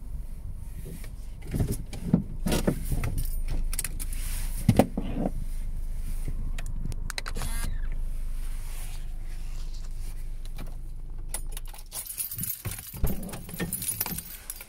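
Car engine idling, heard from inside the cabin, under clicks and rustles of things being handled. The low hum dies away about eleven seconds in, and jangling and clatter follow near the end.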